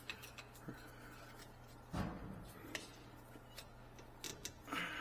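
Scattered light clicks and taps of tools and metal parts being handled, with a duller knock about two seconds in, over a steady low hum.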